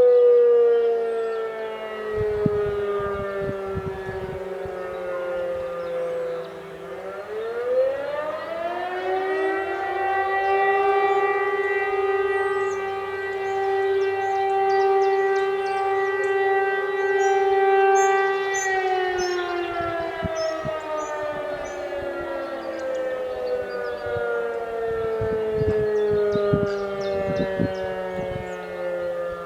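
Civil-defence sirens, a DS977 and an E57, sounding the German fire-alarm signal. The wail dies away, winds back up about seven seconds in, holds a steady tone for about eight seconds, then winds down again: the interruptions that make up the 'Feueralarm' signal.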